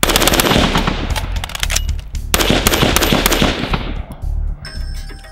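Rapid fire from a custom shortened BCM AR-15-style carbine: a fast string of shots with a brief break partway through, tailing off about four seconds in. Music comes in near the end.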